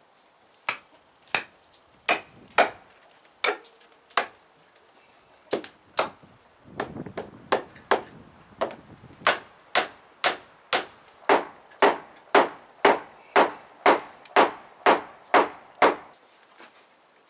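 Hammer driving nails into pallet wood, the blows ringing faintly. The strikes are irregular at first, then settle into a steady run of about two a second.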